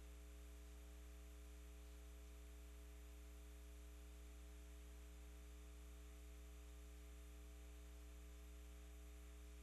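Near silence: a steady low electrical hum, mains hum on the audio feed, with faint hiss.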